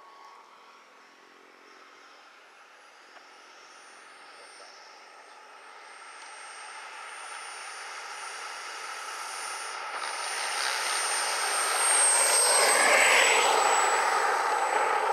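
Radio-controlled model jet's engine whining high, growing steadily louder as the model comes in and rolls along the runway close by. It is loudest about twelve to fourteen seconds in, and its pitch drops slightly as it runs.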